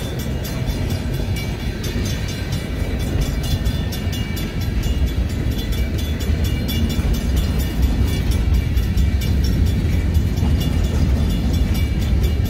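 Freight cars rolling past close by: a steady low rumble of steel wheels on rail. Over it, a grade-crossing signal's mechanical bell rings in rapid, even strokes.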